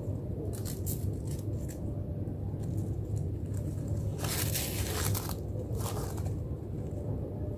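Dry leaves crinkling and crackling as a cat paws and noses at a beetle among them: a few short crackles about a second in, then a longer crinkle a little past four seconds in and a brief one near six seconds.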